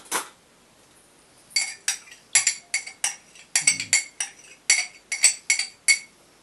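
A metal spoon clinking repeatedly against the side of a bowl while stirring grape syrup into water: about a dozen sharp, ringing clinks, two or three a second, starting about a second and a half in.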